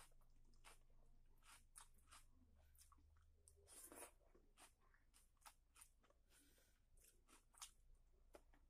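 Faint hand-eating sounds: fingers mixing rice and chicken curry, then a handful taken into the mouth about four seconds in and chewed, with many small wet clicks and smacks scattered through.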